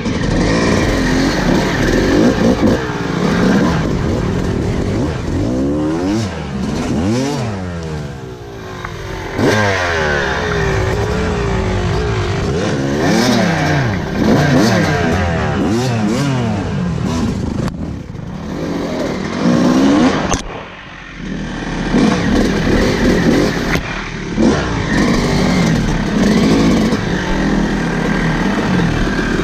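Yamaha YZ dirt bike engine revving up and down over and over as the bike is ridden, with clatter from the bike over rough ground. The throttle comes off briefly twice, about a quarter of the way in and again about two-thirds in.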